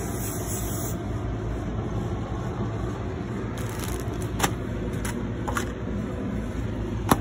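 A plastic mailer and paper mail handled on a wooden slatted bench: a few short crinkles and taps, then a sharp knock near the end, over a steady low rumble.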